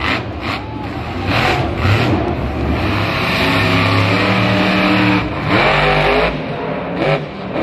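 Monster truck's supercharged V8 engine running hard. It holds a steady note for a couple of seconds midway, then revs up with a rising pitch about two-thirds of the way through.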